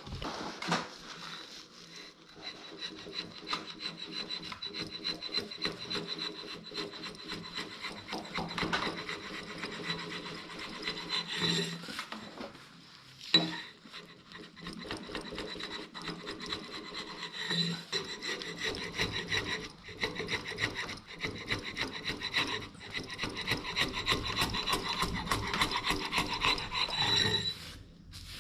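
Timber-framing slick paring the surface of an oak beam, a long run of quick rasping shaving strokes on the wood, with a short pause and one sharp knock about halfway through.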